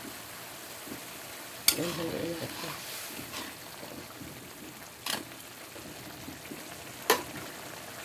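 A pan of tomato-and-tuna broth simmering and bubbling while it is stirred with a cooking utensil. The utensil knocks sharply against the pan three times: about a second and a half in, then around five and seven seconds.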